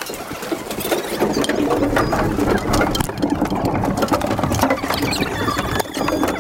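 Skiers boarding a packed ropeway cabin: a dense, continuous clatter of knocks and clicks from ski boots, skis and poles against the cabin's metal floor and railings, with the rustle of jackets and backpacks. A thin high tone sounds briefly near the end.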